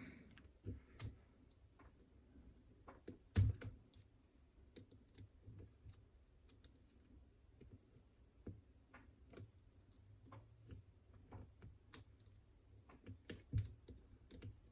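Lock picks and a tension tool clicking and tapping inside a Caniss padlock as it is picked back closed: small irregular metal clicks, with a louder knock about three and a half seconds in and a few more near the end.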